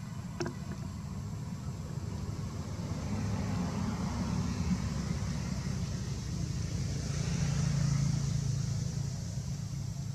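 Motor vehicle passing, a low engine rumble with tyre hiss that swells twice, the second time louder near the end, then fades.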